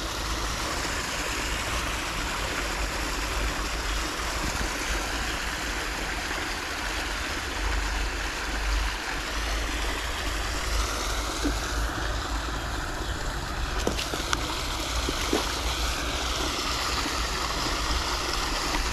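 Steady rush of water pouring from an outfall and splashing into the river, with a couple of faint clicks about three-quarters of the way through.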